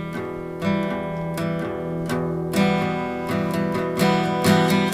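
Music: an instrumental guitar passage of a rock song, with strummed guitar chords that change every second or so.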